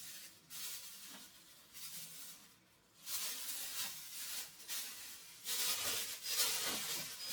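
Irregular rustling and handling noise, dropping away briefly in the middle and picking up louder again about three seconds in.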